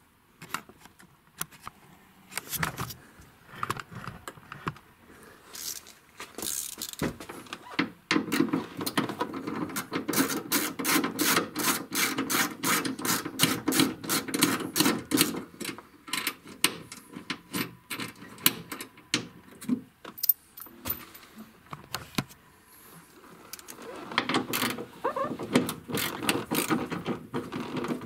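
Ratchet wrench clicking in long even runs of about four clicks a second, as nuts on the rear wiper motor's mounting are turned, with scattered metal clinks between the runs.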